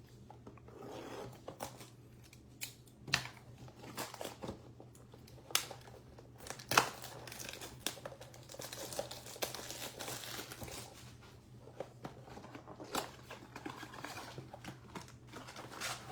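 Plastic wrapping crinkling and cardboard tearing as a blaster box of trading card packs is opened, with irregular crackles and sharp snaps, the loudest about seven seconds in.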